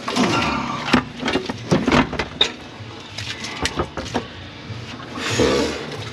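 Irregular metal knocks and clanks, with two longer scraping stretches, as a part is worked loose by hand on a pickup truck during engine removal.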